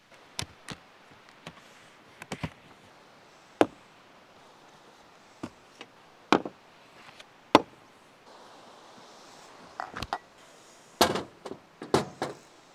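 Camping gear being handled and set down at a pickup truck: more than a dozen irregular sharp knocks and clacks, with a cluster of the loudest near the end.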